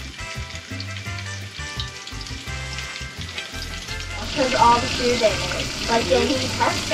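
Breaded fish fillets frying in hot oil in a pan, a loud sizzle that swells about four seconds in, over background music.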